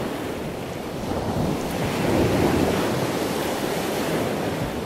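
Steady rushing noise like breaking surf, growing a little louder about a second and a half in and cutting off suddenly near the end.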